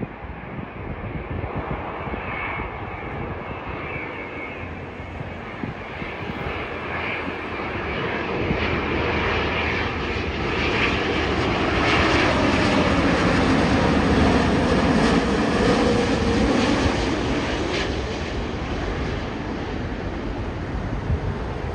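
British Airways Boeing 787 airliner's Rolls-Royce Trent 1000 jet engines on final approach, passing low overhead: a steady rumble and whine that swells to its loudest about halfway through, drops in pitch as the aircraft goes by, then eases off.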